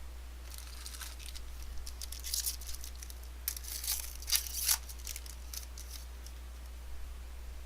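Foil wrapper of a trading-card pack being torn open and crinkled: a string of short rips and crinkles over several seconds, loudest about four to five seconds in.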